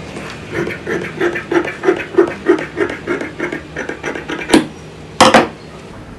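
Large steel tailor's shears cutting through cotton fabric on a table, an even run of crunching snips about three a second. Near the end, a sharp click followed by a louder, brief rustle.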